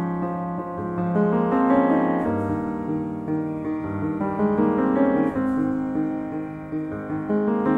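Background piano music, with held notes and chords that change every second or two.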